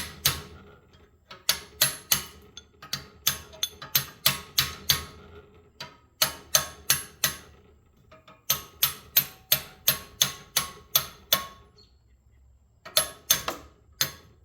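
Hammer blows on the steel core of a motor starter's transformer, beating the copper winding off: sharp, ringing metal-on-metal strikes about two or three a second. They come in four runs separated by pauses of about a second.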